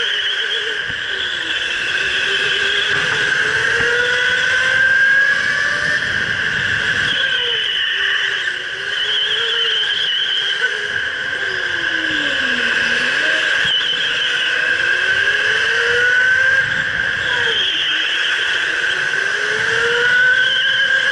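Electric go-kart motor whining at speed, its pitch sliding down as the kart slows for corners and climbing again as it accelerates, the deepest dip about two-thirds of the way through. The whines of other karts on the track run under it.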